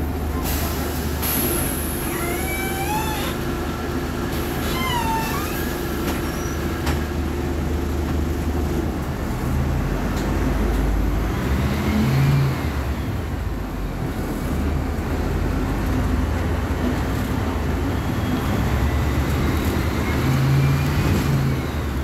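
Volkswagen 17.230 OD city bus engine running with a steady low drone, its note swelling about halfway through and again near the end. A few short high squeaks come in the first few seconds.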